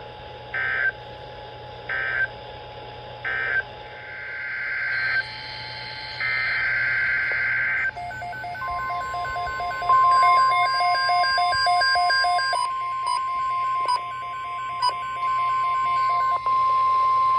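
NOAA Weather Radio alert signalling: three short digital data bursts about a second apart, the SAME end-of-message code closing the previous warning, then longer data bursts. From about eight seconds in a steady 1050 Hz attention tone sounds, with rapid electronic beeping over it, announcing the next alert.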